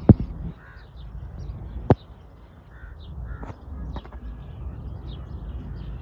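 A sharp crack right at the start: an Edgun Matador R3M .22 PCP air rifle firing. A second sharp click follows just before two seconds in, and birds call now and then throughout.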